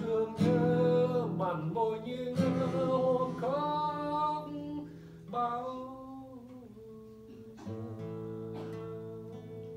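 A man singing a slow song to his own acoustic guitar accompaniment. The voice drops out in the second half, leaving the guitar playing on its own.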